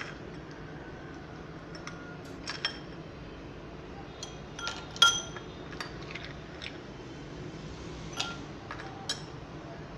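Ice cubes being spooned from a glass bowl into stemmed glasses: a metal spoon and the cubes clink against the glass about ten times at uneven intervals, with short glassy rings, the loudest clink about halfway through.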